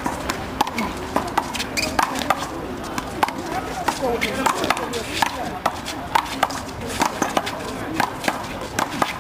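Sharp, irregular smacks of a small rubber handball struck by hand and bouncing off a concrete wall and court floor during a fast rally, several a second, mixed with sneaker footsteps and scuffs on the concrete.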